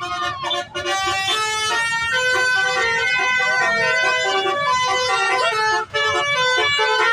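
Bus telolet basuri horn, a set of musical air horns, playing a tune in stepped notes, several tones sounding together, with a brief break about six seconds in.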